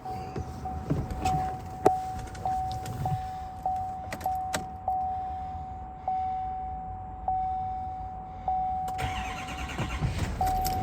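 Truck's repeating warning chime dings steadily, with a few clicks. About nine seconds in, the 6.6-litre Duramax diesel V8 cranks and starts.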